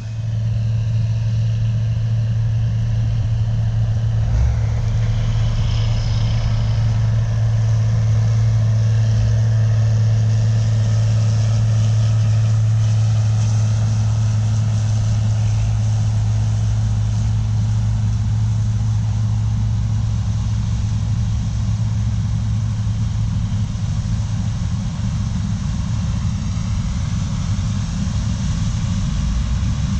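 Heavy harvest machinery's diesel engines running steadily, a constant low drone with a mechanical whir above it.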